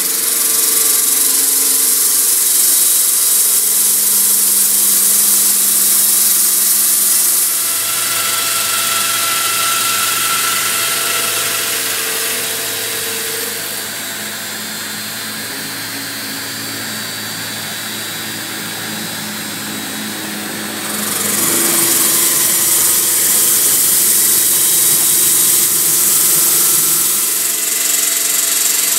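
CNC stone-cutting machine working Yorkstone, a loud steady hiss of the cutter in the stone over a motor hum. About seven seconds in the hiss drops away, leaving a quieter hum. It returns at full strength about two-thirds of the way through and eases just before the end.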